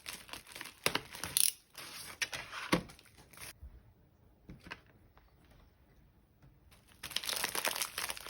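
Packaging crinkling and crackling as it is handled and torn open. The crinkling goes quiet for a few seconds in the middle, with only a few small ticks, then starts up again near the end.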